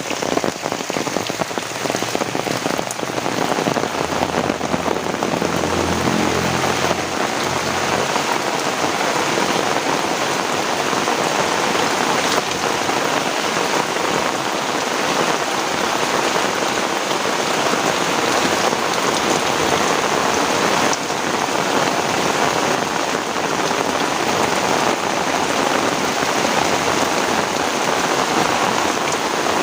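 Heavy rain falling steadily, a dense hiss of drops. A low rumble sits underneath it from about four to eight seconds in.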